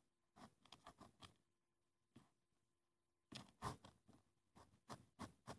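Faint clicks and taps from handling a small sand-art bottle and the stick in its neck, with a louder clatter about three and a half seconds in and quick taps about twice a second near the end.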